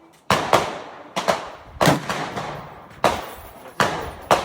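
Gunshots, about eight in irregular succession with some fired in quick pairs, each sharp crack trailing off in an echo.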